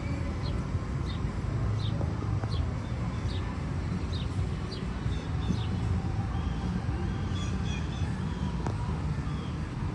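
Birds chirping, short high notes repeated about twice a second, over a steady low rumble of city traffic.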